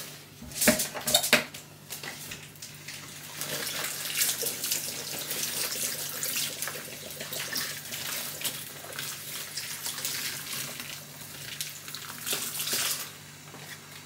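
Kitchen tap running into a stainless-steel sink while large green leaves are rinsed and handled under the stream, a steady hiss of water. There are two sharp knocks about a second in.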